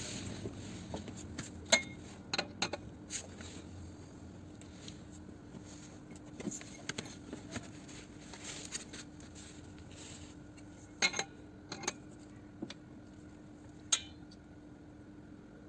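Scattered light metallic clinks and knocks of hand tools and a jack being handled and set down, a few isolated strikes seconds apart, over a faint steady hum.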